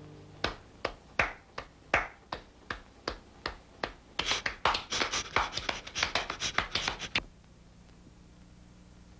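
Hand claps: slow, evenly spaced single claps about two or three a second, then a quicker, louder flurry of clapping that stops suddenly near the end.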